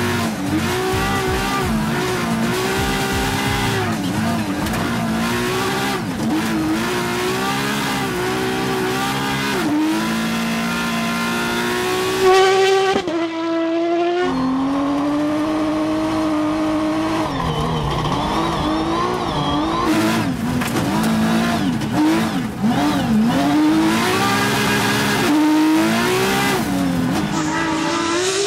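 The MC2 rally car's 450 hp RenaultSport V6, a Formula Renault 3.5 engine, revving hard again and again. The pitch climbs through each gear and drops sharply at each paddle shift or lift, with tyre and gravel noise underneath. The sound breaks off briefly about thirteen seconds in, then comes back as a held note before the revving resumes.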